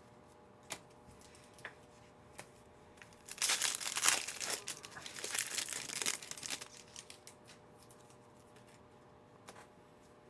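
A few light clicks, then a trading-card pack wrapper being torn open and crinkled for about three seconds, loudest near the start of the tearing.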